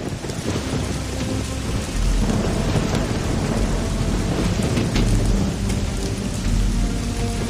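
Thunderstorm: steady heavy rain with rolling thunder. The low rumble swells about two seconds in and keeps rumbling on.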